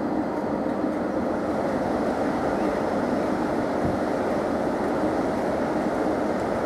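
Class 90 electric locomotive moving slowly along the platform, giving a steady, even machinery noise with no changes.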